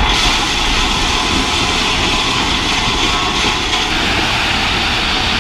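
Loud, steady vehicle engine running with a dense rushing hiss, an added sound effect that cuts in and out abruptly, laid over a toy truck.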